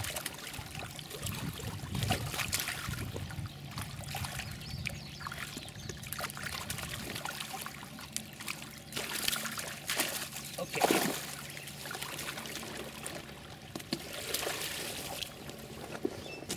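Pond water splashing, sloshing and dripping as koi are netted and handled with a long-handled landing net in shallow water, with a louder splash about eleven seconds in.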